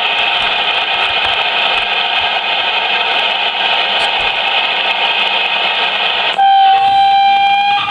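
A CB radio transmission coming through the radio's speaker. A harsh, noisy sound runs for about six seconds, then cuts over to a long, steady, beep-like tone near the end.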